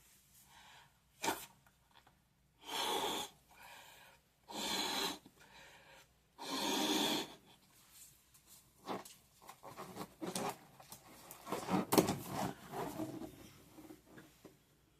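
A rubber balloon being blown up by mouth: three long puffs of breath into it, followed by crackly squeaks and rubbing of the stretched rubber as it is handled, with a sharp snap near the twelve-second mark.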